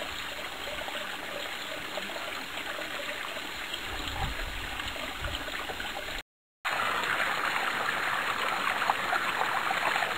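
Flowing river water rushing steadily. It drops out to silence for a split second about six seconds in, then comes back louder and brighter.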